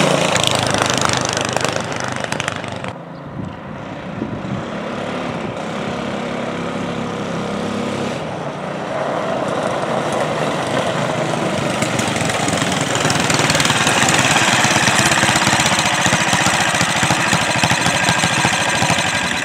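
Predator 212 single-cylinder four-stroke engine on a homemade mini bike running under throttle as the bike rides. It is loud as the bike passes close at first, drops back, then grows louder again as the bike comes back close by, and falls away right at the end. The engine is running a little lean, which the owner puts down to the fuel not mixing right.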